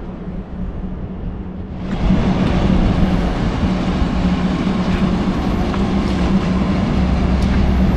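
Steady low engine hum with rumble beneath it. About two seconds in, a broad rushing noise rises sharply and then holds.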